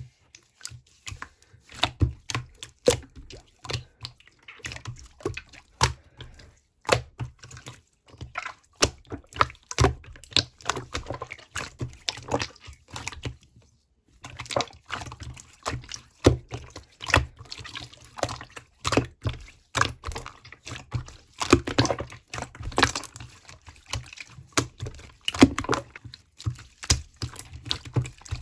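Irregular wet clicks and light taps of something liquid or sticky being handled, with a brief silent break about halfway.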